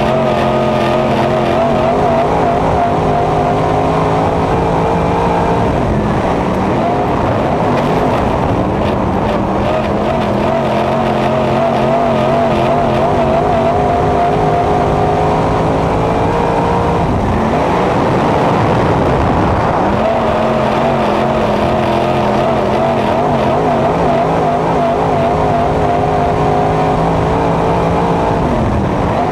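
Dirt-track race car's engine heard from inside the cockpit, running hard at steady high revs, then dropping and climbing back up about every 11 seconds as the driver lifts for each turn and gets back on the throttle, lap after lap.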